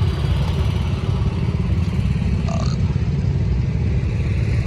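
Engine running steadily with a low rumble, and a brief higher-pitched sound about two and a half seconds in.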